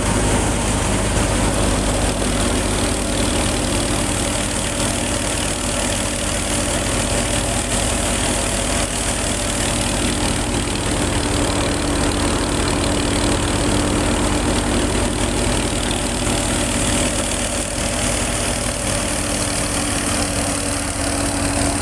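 Belt-driven wheat thresher running steadily while threshing, its drum and blower going together with the engine that drives it in one constant, unchanging machine noise.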